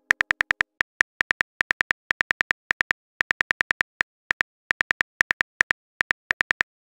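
Phone keyboard typing sound effect: a fast, uneven run of short clicks, several a second, with a few brief pauses, as a message is typed.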